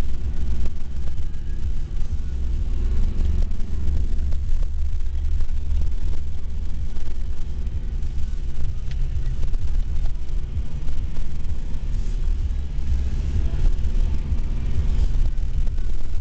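Car engine labouring and revving up and down as the car drives through deep snowdrifts, heard from inside the cabin, over a heavy low rumble with scattered knocks.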